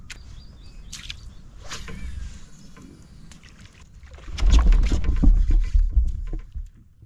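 Water sloshing and small knocks around a kayak, then about four seconds in a louder, rough burst of splashing and rumble lasting about two seconds.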